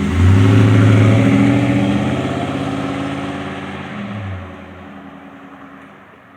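2007 Chevy Silverado's 4.8-litre V8 exhaust through a Cherry Bomb Vortex muffler, single exhaust, as the truck takes off under hard throttle. The rumble jumps up just after the start and is loudest in the first second. It then fades steadily as the truck pulls away, with a brief swell about four seconds in.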